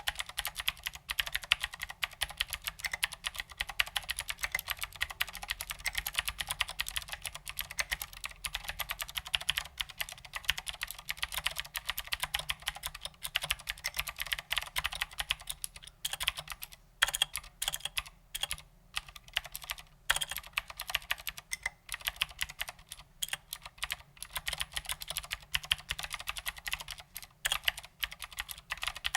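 Fast continuous typing on a Ducky Legend mechanical keyboard with clicky Cherry MX Blue switches and tall SA-profile ABS doubleshot keycaps: a dense stream of sharp clicks, with a few brief pauses about two-thirds of the way through.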